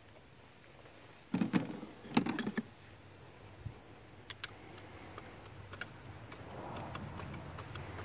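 Two short bursts of rattling and clicking about a second and a half and two seconds in, then scattered light clicks: a hand tool and fittings being handled on the diesel fuel filter in the engine bay.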